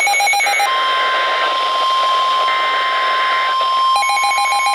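NOAA Weather Radio warning alarm: a steady single-pitched tone near 1 kHz, the 1050 Hz alert tone, comes in under a second in and holds. Before it, and again from about four seconds in, a rapidly pulsing electronic beep alarm from a weather-radio receiver sounds.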